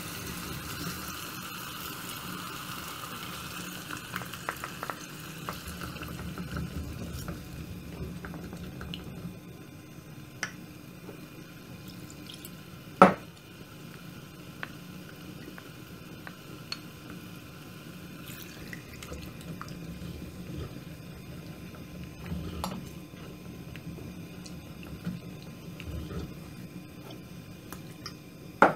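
Onion and tomato sizzling in oil in a clay pot while a wooden spoon stirs them; the sizzle dies down over the first several seconds as a thick shiro paste goes into the pot. Then wet stirring and bubbling of the sauce, with a sharp knock about halfway through and a few lighter taps.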